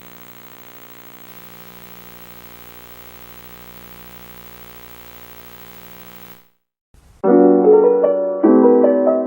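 A faint steady drone cuts off about six seconds in. After a short silence, background piano music starts playing chords.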